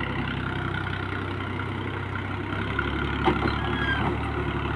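Alghazi 65 HP tractor's diesel engine running steadily as it hauls a heavily loaded sugarcane trailer, its note shifting slightly partway through. A clank and a brief squeal come about three seconds in.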